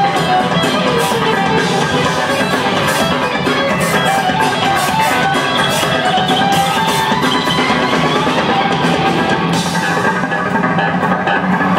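Live rock band playing an instrumental passage with no singing: electric bass, electric guitar and drum kit, loud and steady, heard from the audience floor.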